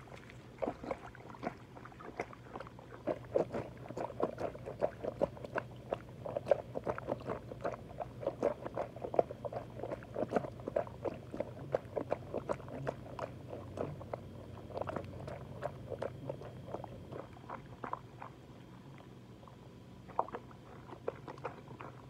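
Wet mud squelching and smacking in quick, irregular bursts as rubber boots and a body shift in soft mud, busiest through the middle and thinning out near the end. A low steady hum runs underneath.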